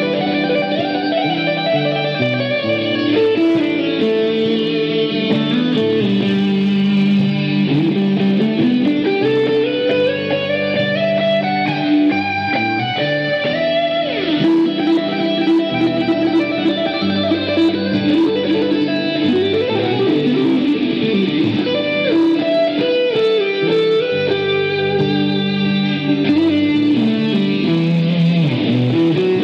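Fingerpicked acoustic-electric guitar played through its pickup: a continuous run of plucked notes, with several notes slid up and down in pitch.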